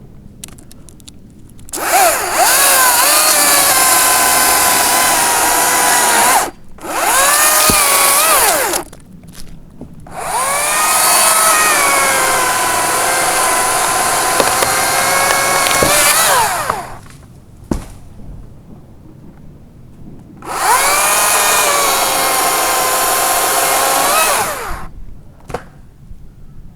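Makita 40V cordless top-handle chainsaw run in four bursts while cutting dead branches. Its electric motor whine sags in pitch while the chain is in the wood and rises again as each cut ends.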